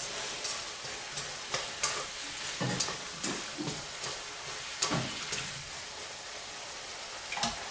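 Pieces of ribeye steak sizzling in a frying pan, with scattered clinks and scrapes, about one a second, as a utensil stirs and turns the meat against the pan. The loudest clink comes near the end.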